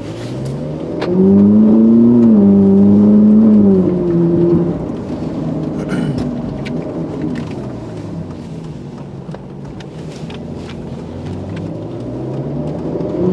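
Ferrari 458's naturally aspirated 4.5-litre V8 and exhaust accelerating. The engine note climbs about a second in and holds loud for a few seconds. It then eases off to a quieter cruise and starts building again near the end.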